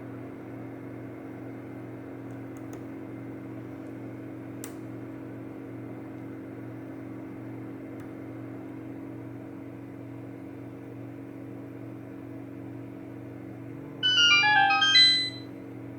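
A steady low electrical hum, with a faint tick about five seconds in. About fourteen seconds in, a short electronic jingle of quick high notes plays for about a second and a half and then stops.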